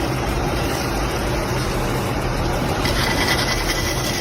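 An engine or machine running steadily with a low hum, and a thin high whine joining about three seconds in.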